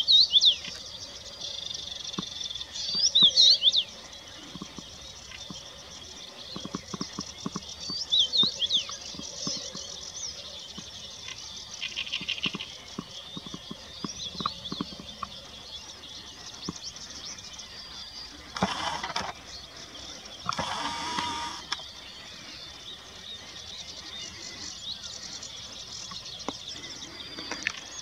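Songbirds singing, a chorus of high, quick chirping and warbling phrases over a faint steady hiss. About two-thirds of the way in come two short, harsh, noisy sounds a second or two apart.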